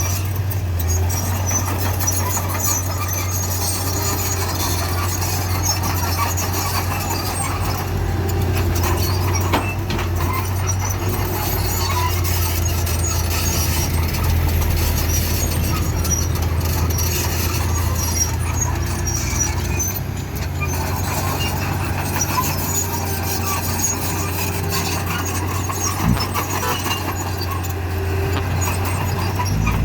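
Bulldozer at work: a steady low engine drone with frequent short, high-pitched squeals and squeaks over it.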